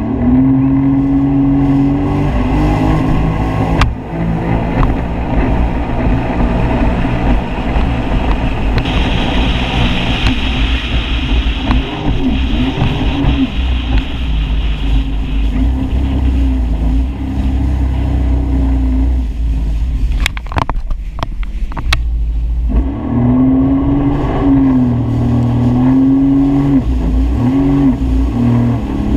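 Jet ski engine running under throttle, its pitch rising and falling, with water spray hissing for several seconds near the middle. About two-thirds of the way in the engine note drops away and a few sharp crackles are heard, before it picks up again.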